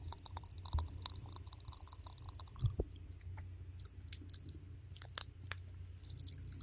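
Close-miked ASMR mouth sounds: rapid wet clicks and smacks right at the microphone, thinning out about three seconds in to scattered clicks.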